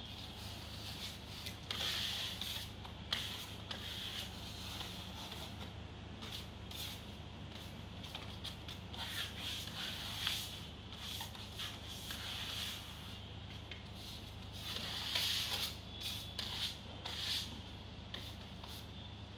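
Hand trowels and floats scraping and spreading screed over a cement-rendered wall, in repeated irregular strokes with an occasional knock of the tool, over a steady low hum.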